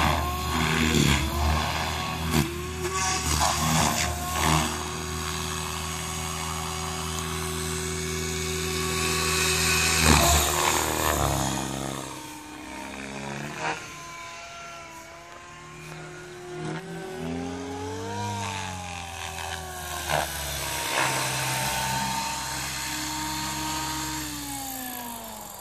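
SAB Goblin 500 electric RC helicopter flying: the rotor blades and the motor whine together, steady at first, then rising and falling in pitch as it manoeuvres. The pitch drops and the sound fades near the end as it comes down low.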